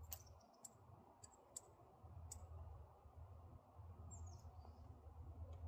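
Near silence with a few faint light clicks in the first two and a half seconds, from the breech of a Ballard single-shot rifle being worked to load it. A faint high chirp sounds about four seconds in.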